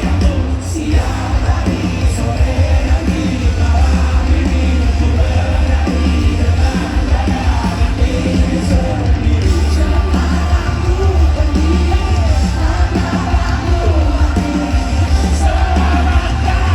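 Loud live pop-rock concert music: the band plays with heavy, booming bass while a voice sings, with the crowd's voices mixed in, heard through a phone's microphone in the audience.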